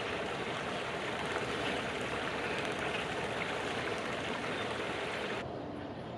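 Steady rushing noise, like running water or wind, that cuts off abruptly about five and a half seconds in.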